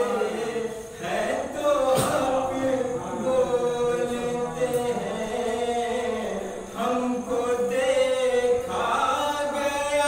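A man singing a devotional kalam into a microphone in a chant-like style, unaccompanied, with long held and gliding notes.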